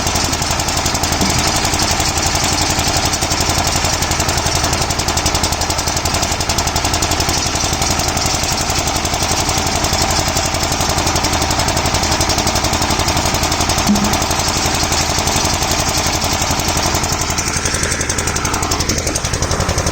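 A harvesting machine's engine running steadily at a constant speed, with a rapid, even knocking pulse.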